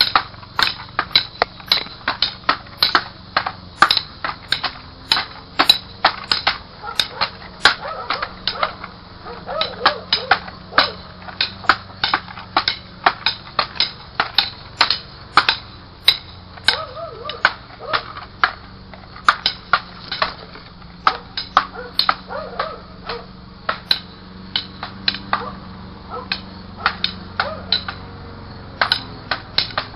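Toy swords clacking against each other in a staged sword fight: a rapid, uneven run of sharp hits, about two to three a second, with brief pauses.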